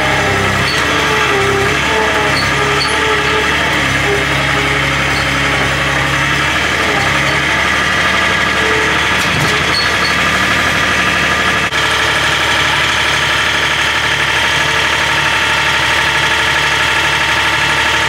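Skid-steer loader's engine running loud and steady under load as the loader lifts and tips its bucket of dirt, its pitch shifting slightly now and then.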